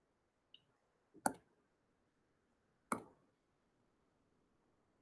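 Two sharp computer mouse clicks just under two seconds apart, after a faint tick, against faint room hiss.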